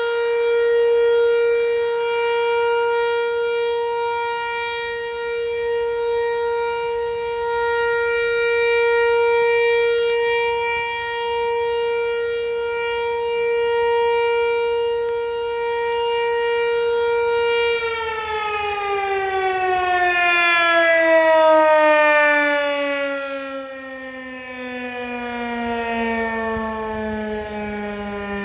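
Outdoor tornado warning siren sounding a steady tone that swells and fades every few seconds. About 18 seconds in it winds down, its pitch falling steadily as it shuts off.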